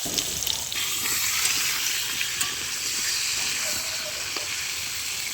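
Food sizzling as it fries in hot oil in a cooking pan: a steady hiss with a few faint clicks.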